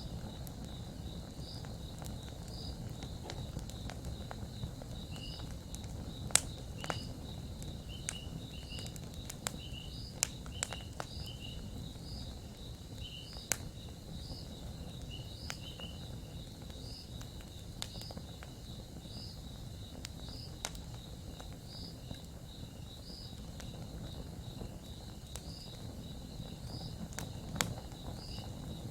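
Campfire crackling, with sharp wood pops every second or two over a low steady rumble, while insects chirp in an even rhythm.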